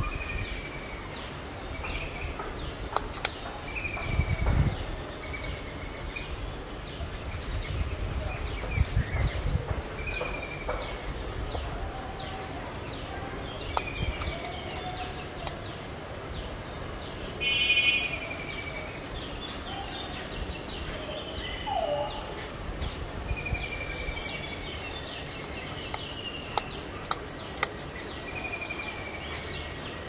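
Several wild birds calling in a tree canopy: a short falling whistle repeats every two to three seconds among clusters of very high, thin chirps and a few other brief calls. Low rumbles come in twice in the first third.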